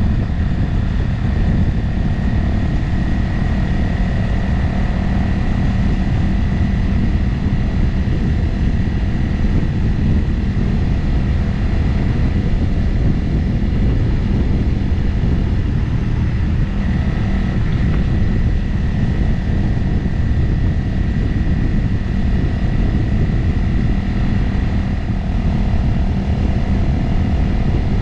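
Motorcycle engine running at a steady cruise, its note shifting slightly about two-thirds of the way through, under a constant rush of wind on the microphone.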